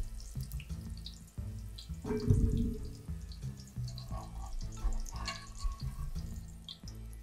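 Hot oil bubbling and crackling, with splashes and drips as fried potato pieces are lifted out of the oil with a wire spider skimmer. There is a louder clatter about two seconds in, from the skimmer knocking against the pan.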